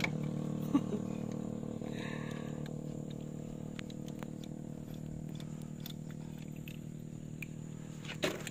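A steady low engine hum from an idling motor, slowly fading, with a few sharp metallic clicks as a lug nut is turned by hand in a socket; the loudest click comes under a second in.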